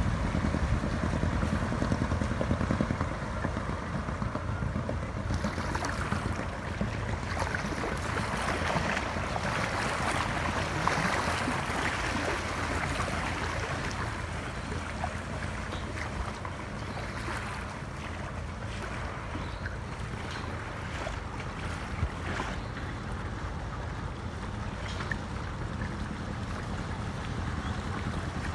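Restored Albin 021 marine engine running steadily under way in a small clinker launch, on test after installation, with wind on the microphone.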